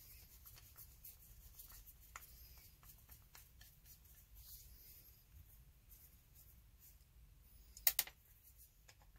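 Faint small clicks and scrapes of screwdriver tips working inside a cordless ratchet's gear housing to free the planetary gear set and bearing support. About eight seconds in, a short, louder clatter as the housing and tools knock on the workbench.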